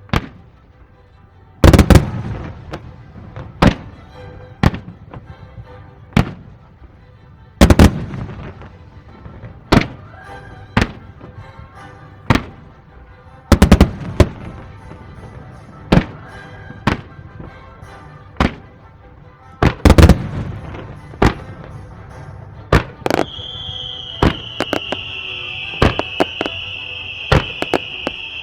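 Fireworks shells bursting over background music: a run of sharp bangs, with heavy booms and rumbling tails roughly every six seconds. A high steady whistling tone comes in near the end.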